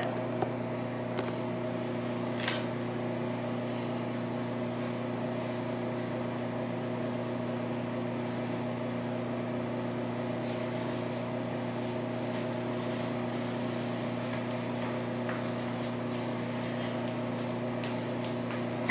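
Steady low hum of ventilation equipment, unchanging throughout, with a faint click about half a second in and another about two and a half seconds in.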